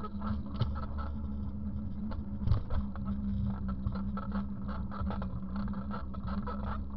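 Steady rumble and rattling clicks of a bicycle rolling over paving, picked up through a camera mounted on the bike, with one louder knock about two and a half seconds in.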